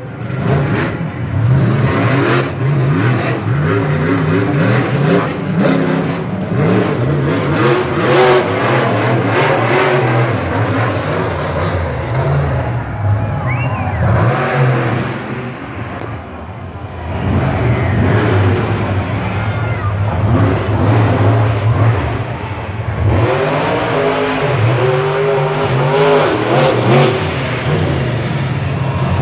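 Monster truck engine revving hard again and again, the revs swinging up and down, easing off briefly about halfway through before building back up.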